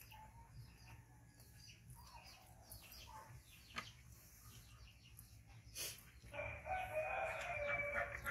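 A rooster crowing: one long call of about two seconds, starting about six seconds in, after a stretch with only faint clicks and taps.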